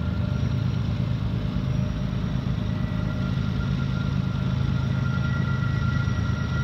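Diesel locomotive engine running steadily: an even low drone with a faint steady whine above it.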